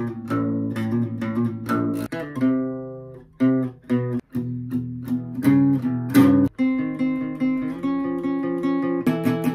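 Solo acoustic guitar playing a medley, moving through short excerpts of different songs with plucked notes and strummed chords. Brief drops in loudness come about three and four seconds in, and again at about six and a half seconds, as one excerpt gives way to the next.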